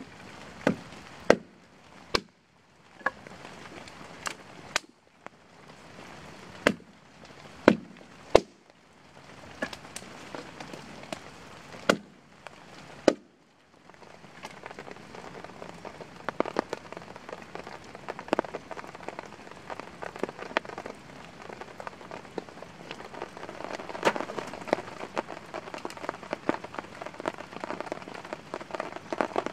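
About a dozen sharp, irregularly spaced blows of a hand blade chopping into pine branches. From about 14 seconds in, the chopping gives way to steady rain, with many small drop ticks.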